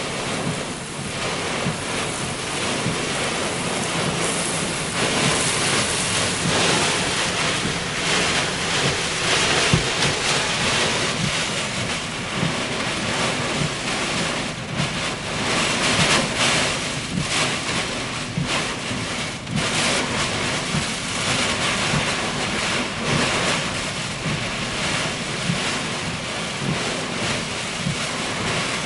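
Severe thunderstorm outflow: strong gusting wind and heavy, wind-driven rain, heard from inside a car, with rain hitting the car and the wind swelling and easing in gusts.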